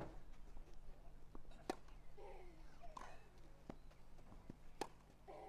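Tennis rally on a grass court: rackets strike the ball with sharp pocks about every one and a half seconds, with fainter ball bounces between the strikes.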